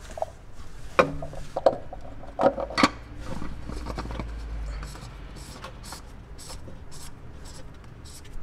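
Hand-handling noises against a car's underbody panel: a few sharp knocks and clicks in the first three seconds, then lighter tapping and rubbing as the hand works through the panel's access hole.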